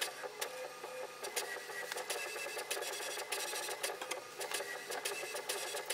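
HP Envy Photo 6220 inkjet printer printing its calibration page during initial setup: the print carriage and paper feed running with a rapid, uneven run of clicks and ticks over a faint steady hum.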